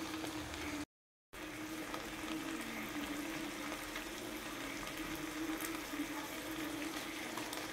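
Beef steaks and garlic frying in oil and butter in a nonstick frying pan: a steady sizzle, with a faint steady hum underneath. The sound drops out for about half a second, about a second in.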